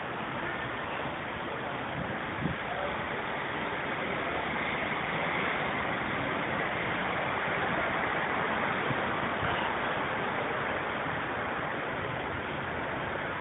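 Steady rushing hiss of city street traffic heard from above, swelling slightly midway, with one short knock about two and a half seconds in.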